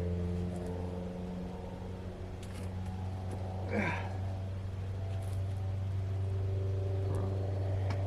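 Tractor engine running steadily, with a short falling squeal about four seconds in.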